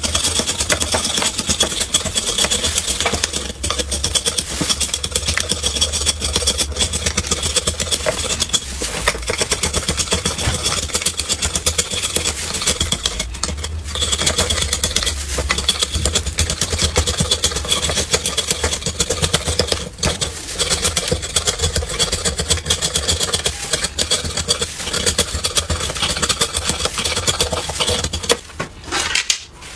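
Knife blade scraping rapidly down a block of hard clear ice, shaving it into fine flakes: a dense, continuous run of quick scraping strokes that thins out near the end.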